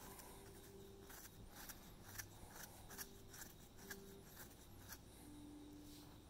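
Near silence: quiet room tone with faint scattered light ticks and rustles, and a few faint held notes in the background.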